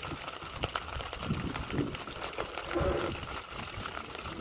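Light drizzle falling on the sea around a small boat: a steady hiss dotted with many small ticks of drops, with low rumbles underneath.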